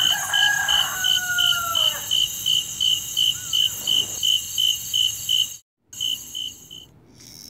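Crickets chirping in an even pulse, about three a second, with a rooster crowing once over the first two seconds. The chirping cuts off abruptly about five and a half seconds in.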